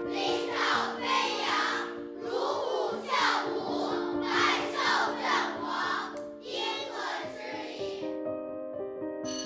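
Background music of steady held notes, with a group of children's voices shouting together in rhythm, about once a second, until the shouts stop about eight seconds in.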